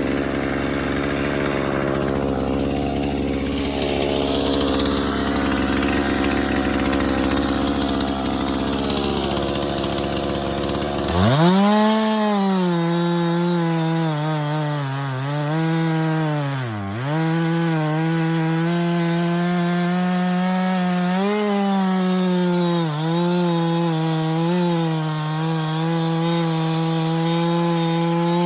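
Two-stroke Husqvarna chainsaw cutting a sycamore log. It runs at lower speed at first, then about eleven seconds in revs sharply to full throttle. It holds there, its pitch sagging briefly several times as the chain loads in the wood, most deeply about halfway through.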